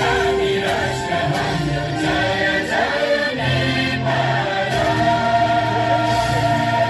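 Background music with a choir of voices singing over a steady bass.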